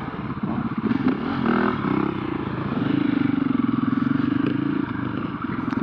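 Husqvarna FE501's single-cylinder four-stroke engine running while the bike is ridden, over a haze of wind and riding noise. The revs shift around one to two seconds in, then hold steady.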